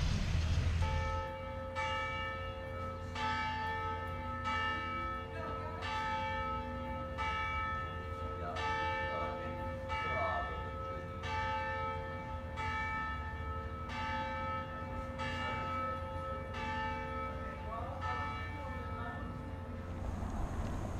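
Church tower bells ringing, struck about every second and a half, each tone hanging on until the next strike. The ringing starts about a second in and stops near the end.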